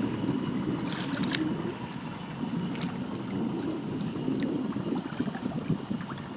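Shallow water sloshing and lapping around a man wading and groping along the muddy bottom by hand, an uneven watery rush with a few faint splashes about a second in.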